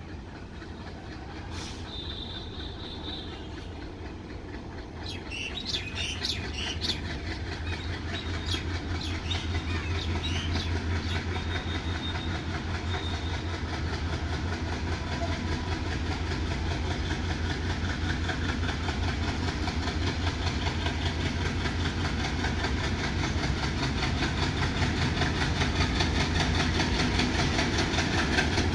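ALCO diesel locomotive hauling a BCNHL covered-wagon freight train on its approach, its deep engine rumble growing steadily louder as it nears. A few brief high-pitched chirps sound around five to seven seconds in.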